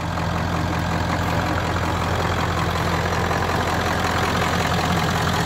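Ford F-250's 7.3-litre V8 diesel idling steadily, a constant low hum with an even diesel clatter.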